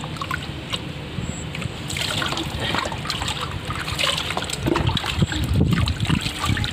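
Water poured from a steel mug over a child's head, splashing down into a plastic tub of water, starting about two seconds in and carrying on steadily.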